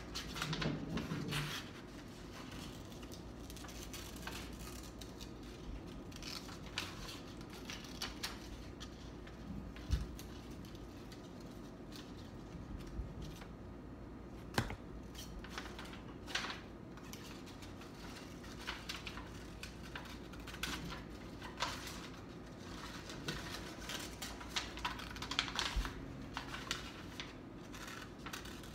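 Scissors cutting paper: short, irregular snips as the blades close, with light rustling of the paper as it is turned.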